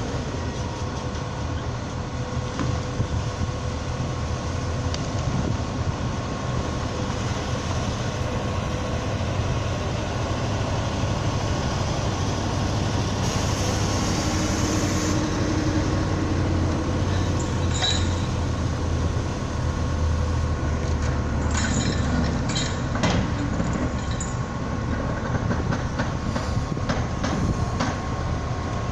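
Heavy machinery running steadily: a low engine drone with a steady whine above it, and a few sharp knocks and clanks a little past the middle.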